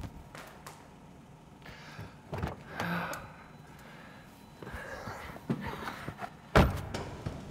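Car door opened, rustling as someone climbs into the driver's seat, then the door slammed shut with a single loud thud near the end.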